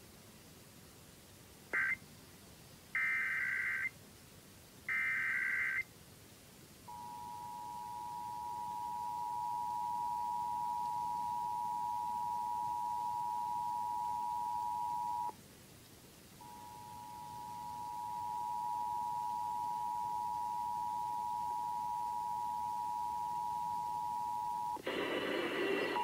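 Emergency Alert System test broadcast: three short bursts of screeching digital SAME header tones, then the two-tone EAS attention signal, a steady dual tone that swells up over a few seconds. The tone breaks off for about a second midway and comes back. Near the end a louder, noisier sound starts over the tone.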